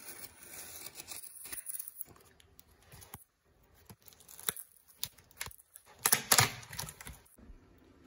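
Packing tape on a cardboard box being slit and torn open, with scraping and rustling over the first couple of seconds and a few sharp clicks. The loudest tear comes about six seconds in and lasts just over a second.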